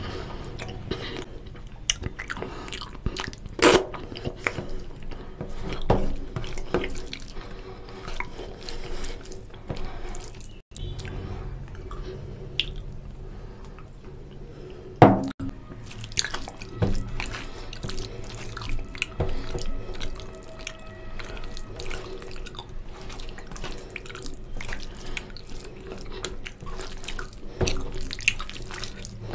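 Close-miked wet squelching and dripping of a hand mixing rice into oily mutton curry on a steel plate, with gravy poured from a bowl onto the plate. A sharp knock about halfway through is the loudest sound.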